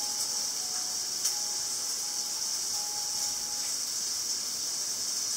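Strong tropical-storm wind outside heard from indoors through closed glass: a steady, even hiss with little low rumble, and a faint thin whistle that comes and goes during the first few seconds.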